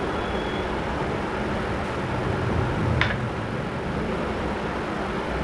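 Fingers mixing rice and fish curry on a metal plate, with one short sharp click about three seconds in, over a steady background rumble and hiss.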